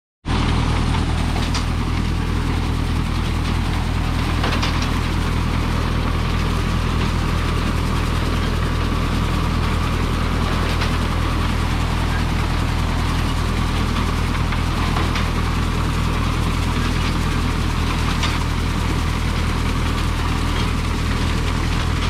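Tractor engine running steadily as it pulls a McCormick-Deering grain binder cutting wheat, with the binder's mechanism clattering and a few sharp knocks spread through the stretch.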